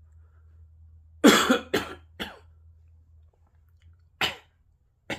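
A person coughing: three harsh coughs in quick succession about a second in, then two more single, shorter coughs near the end.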